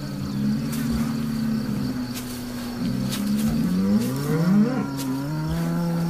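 Bulls bellowing: several low, drawn-out calls overlapping, with calls rising in pitch toward the end.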